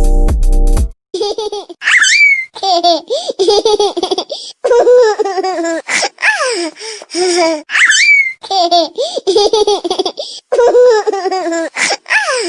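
A baby laughing, played as a ringtone: high-pitched giggles in short bursts with squealing upward glides, the same laughter clip looping about six seconds in. About a second of bass-heavy electronic music is heard at the start before it cuts off.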